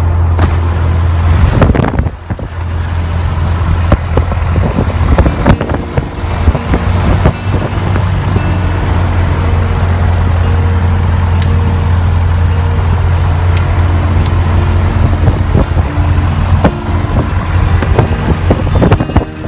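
Light piston aircraft's engine and propeller running at low taxi power, heard from inside the cockpit as a loud steady low drone that dips briefly about two seconds in.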